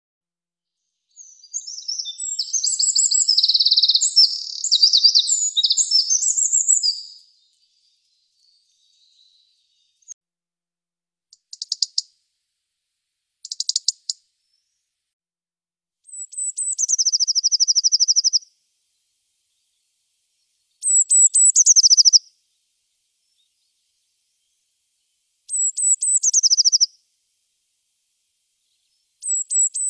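A Eurasian wren's long, rapid, trilling song, then two short bursts of ticking calls. A blue tit's song follows, repeated about four times: high thin notes dropping into a short even trill.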